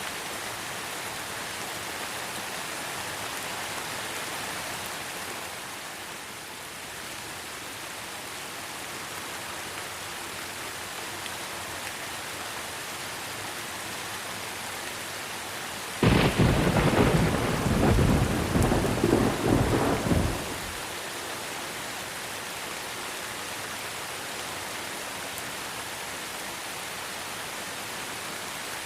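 Steady rain falling, with a sudden loud clap of thunder a little past halfway that rumbles for about five seconds before the rain alone carries on.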